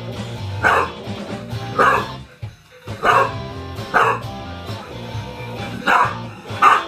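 A small dog barking at a toy robot: six sharp barks about a second apart, with a short pause after the second, over background music.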